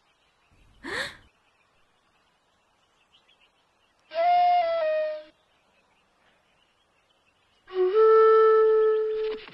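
Two held woodwind notes on a flute-like instrument as comic cartoon scoring: the first about four seconds in steps slightly down in pitch, the second near the end slides up a little and is held. A short rising whoosh comes about a second in.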